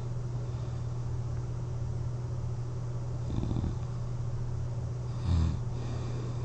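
A person snoring on their back while wearing a CPAP mask: two short snores about two seconds apart, the second louder, over a steady low hum.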